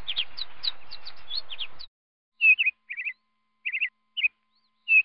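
Small birds chirping: for about two seconds a quick run of high chirps, each dropping in pitch, over a faint hiss. This breaks off suddenly, and after a short pause come short groups of two or three chirps with silence between them.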